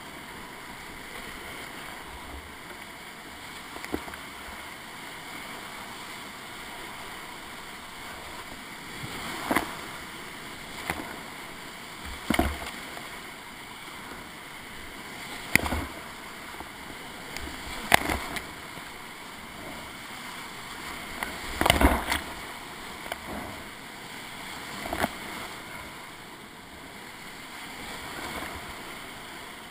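Whitewater rapids of an alpine river rushing steadily around a kayak, with sharp splashes and knocks every few seconds as the boat and paddle hit the waves, the loudest near the middle.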